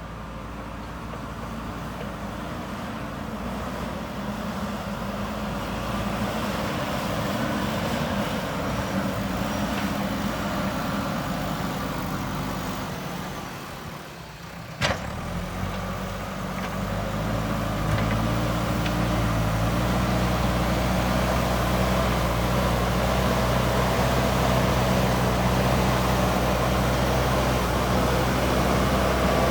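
JCB 3DX Super backhoe loader's diesel engine running under work. There is a single sharp knock about 15 seconds in, and the engine grows louder and heavier from about 17 seconds.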